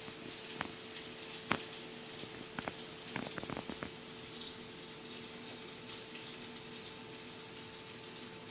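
Faint steady hum and hiss from a small 12 V cooling fan running. A few sharp clicks come through, two in the first second and a half and then a quick cluster around three to four seconds in.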